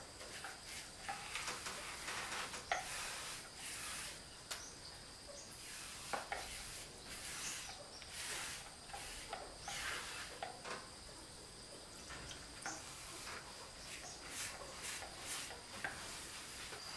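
A paintbrush swishing anti-mold paint onto wooden wall planks in irregular strokes, some short and sharp.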